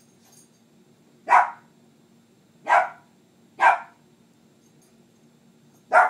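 Lhasa Apso dog barking four times: short, sharp single barks a second or two apart, the last near the end.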